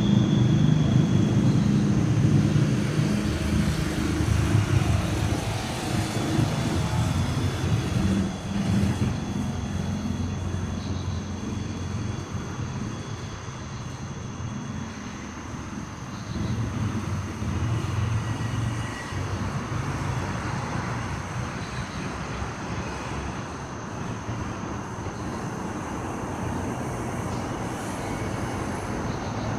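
Steady low rumble of road traffic that swells and eases, with a faint steady high-pitched whine over it.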